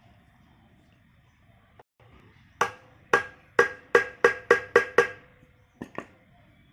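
A series of sharp metal-on-metal taps with a bright ringing tone: eight strikes, coming quicker as they go, then two lighter taps near the end. These fit a hammer knocking on a metal part of the pump during the gland packing job.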